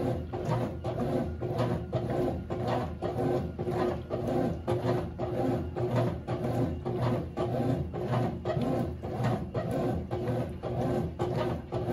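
Consul 12 kg CWS12 top-loading washing machine running its wash, its motor humming steadily under a regular swishing stroke about twice a second.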